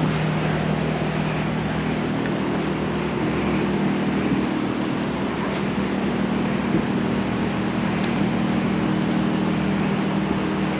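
Steady low machine hum with a few faint knocks.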